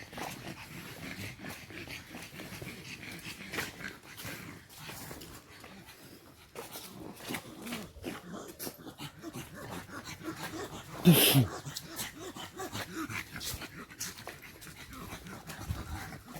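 A dog panting, with one short, loud bark about eleven seconds in.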